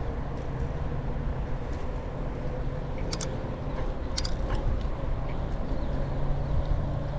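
Wind on the action camera's microphone and tyre rumble from a folding bike riding a dirt trail, with a faint steady hum. A couple of sharp clicks about 3 and 4 seconds in.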